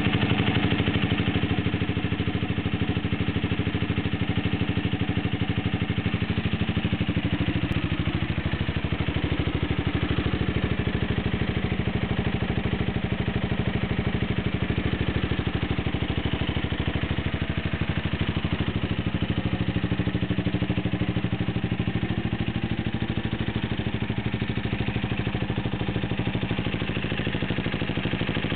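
KTM 1190 RC8's 75-degree V-twin engine idling steadily. This is its first run after an engine rebuild with a new crankshaft and connecting rods.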